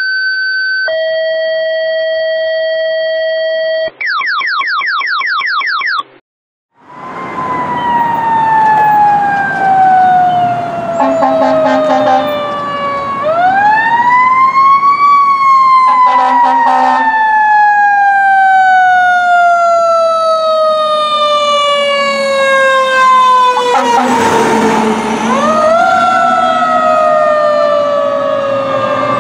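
A fire engine's siren winds up and then coasts slowly down in pitch over several seconds, rising again twice, with short blasts of the truck's air horns in between. It comes after a few seconds of clean steady and fast-sweeping electronic tones.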